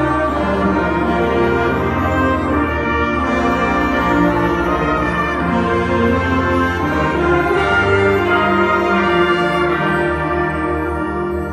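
Student concert band playing a loud, full passage of sustained chords, with the brass prominent over the woodwinds.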